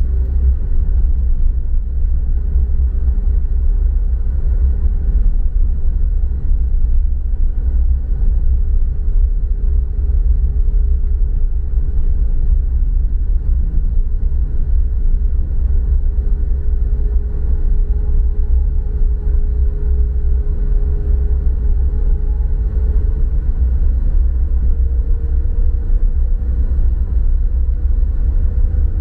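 Steady low rumble of a car driving on a paved road, engine and tyre noise heard from inside the cabin. A faint engine note climbs slightly in pitch near the end.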